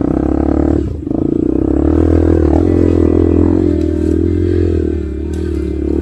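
Honda CRF150L's single-cylinder engine running at low revs with a slightly wavering pitch, briefly dropping about a second in.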